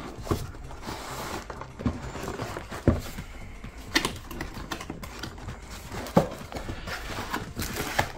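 Cardboard packaging being handled: a headset box and its moulded pulp-fibre insert sliding and rustling against each other, with scattered light knocks and taps at irregular intervals.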